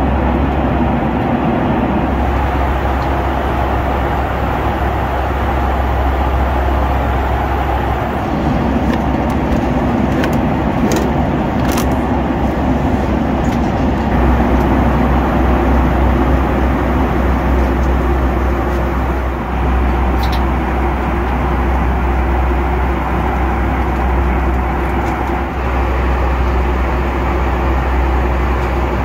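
Steady cabin noise of a Boeing 757 in flight: a constant rush of airflow with a low engine drone, and a couple of sharp clicks about eleven seconds in.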